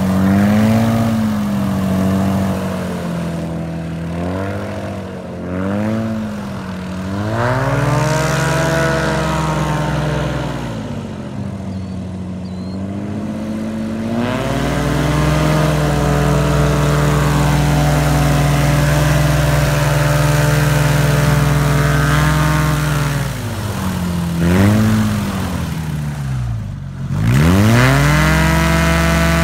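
Airboat's 200 hp TKE Ecotech engine, turning a 74-inch Sensenich NGQ propeller through a 2.3 Ballistic reduction drive, revving up and down repeatedly, then held steady at high revs for several seconds. Near the end the revs drop sharply almost to idle and climb straight back up to a steady high pitch.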